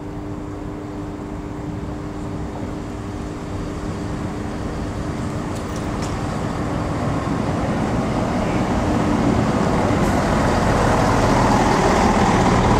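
Diesel multiple unit train arriving at a station platform, its engine and wheel rumble growing steadily louder as it approaches.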